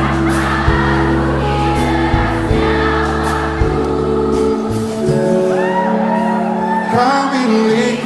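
Live pop band playing, with held bass and keyboard chords and regular drum hits. About five seconds in, wordless sung vocal runs come in over it.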